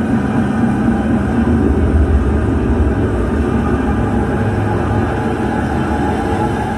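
Sound-design drone from a light-projection show's soundtrack: a loud, steady low rumble with sustained tones held over it.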